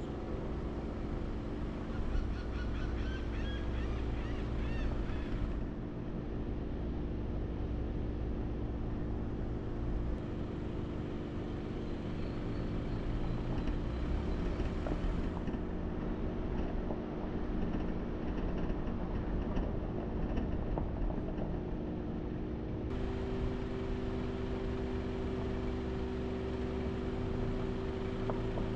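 Steady vehicle hum with road noise, its low tones shifting in pitch about two-thirds of the way through. A few wavering, honking calls are heard about two to five seconds in.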